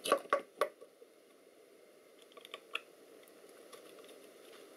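Tools and small parts being handled on a workbench during a teardown: a quick run of sharp clicks and taps in the first second, then a few faint ticks.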